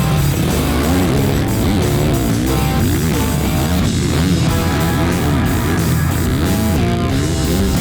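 Loud rock music with distorted electric guitar, heavy-metal style, running steadily.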